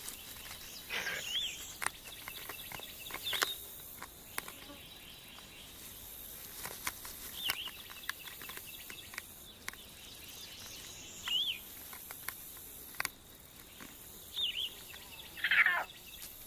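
Outdoor field ambience: a bird gives a short up-and-down call every few seconds over a steady high insect hiss, with scattered faint clicks. A louder call slides downward near the end.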